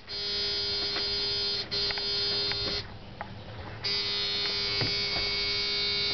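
A steady electrical buzz inside the truck cab that cuts out for about a second midway and then resumes, with a few faint clicks.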